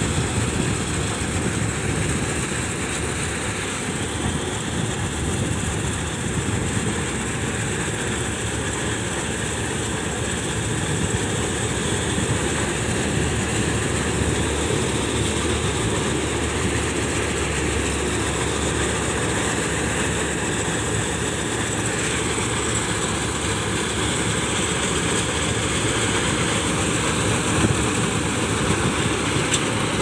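Kuldeep 932 combine harvester cutting wheat: its engine and threshing machinery running with a steady, dense mechanical rumble and clatter.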